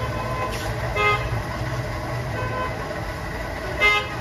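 Two short vehicle horn toots, one about a second in and a louder one near the end, over a steady low rumble.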